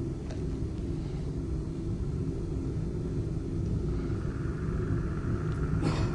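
A steady low rumbling drone from a live sound performance, with a faint high steady tone coming in about two-thirds of the way through and a short hiss near the end.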